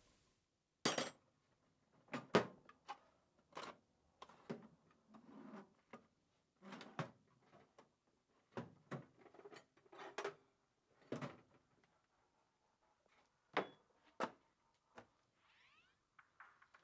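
Metal hand tools clanking and steel tool-chest drawers opening and closing as someone rummages through a rolling tool chest: a dozen or so separate knocks and clicks, unevenly spaced.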